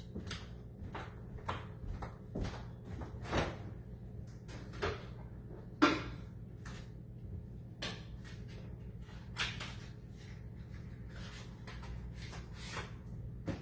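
Kitchen handling noises: an irregular string of knocks and clicks, such as cupboards and utensils being moved, the loudest about six seconds in, over a steady low hum.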